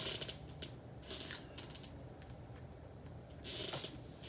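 Three short scratchy rustles of handling noise close to the microphone: one at the start, one about a second in, and one near the end, over faint room hum.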